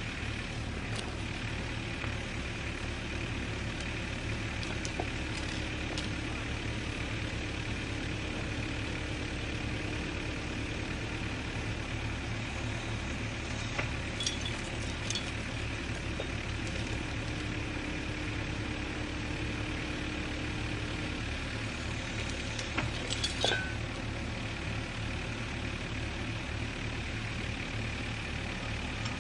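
Cat mini excavator diesel engines running steadily. A held whine comes in about six seconds in and stops about twenty-one seconds in, as the hydraulics work the arm under load. A few sharp metallic clinks come twice, near the middle and later on.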